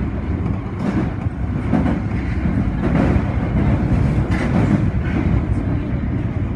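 Osaka Metro subway train running, a steady low rumble with a few faint clicks of wheels over rail joints.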